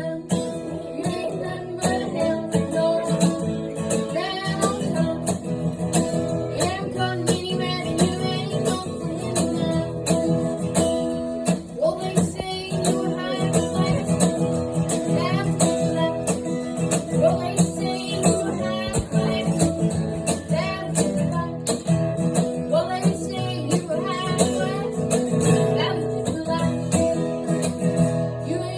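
Music with acoustic guitar, playing steadily throughout.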